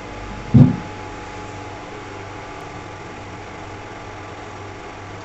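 Steady fan hum and hiss, with one short, loud, low thump about half a second in.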